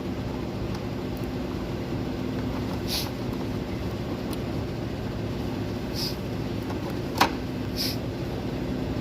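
Steady mechanical hum with a low drone, with a few faint scrapes and one sharp click about seven seconds in.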